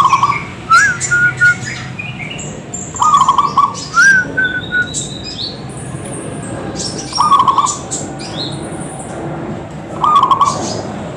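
Zebra dove (perkutut) cooing: a short, pulsed coo repeated four times, roughly every three seconds. Other small birds chirp in between with higher, quicker notes.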